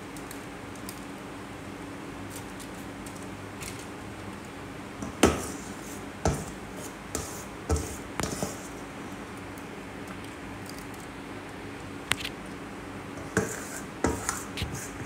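Spring-loaded metal dough scoop clicking and scraping as biscuit dough is portioned onto a metal baking tray: scattered short clicks and knocks, bunched about five to nine seconds in and again near the end, over a faint steady hum.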